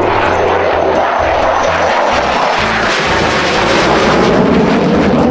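F-16 fighter jet flying past, its jet engine giving a loud, steady rushing noise. A faint high whine falls slightly in pitch over the first couple of seconds, and the sound deepens toward the end as the jet goes by.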